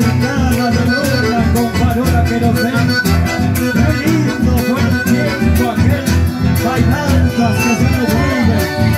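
Live band music led by an accordion, with guitars keeping a steady rhythm.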